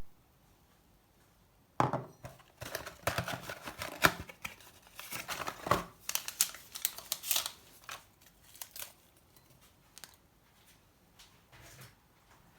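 Small, crisp handling sounds at close range: a string of irregular snips, clicks and crinkles, as of packaging or paper being cut and handled, from about two seconds in until about nine seconds in.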